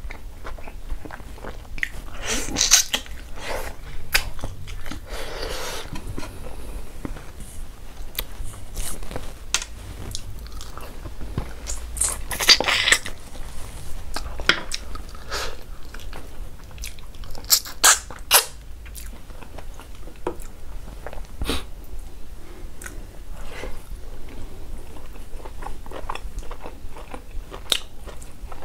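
A man chewing and biting mouthfuls of pork and rice, with many small wet mouth clicks and a few louder bites about 3, 13 and 18 seconds in.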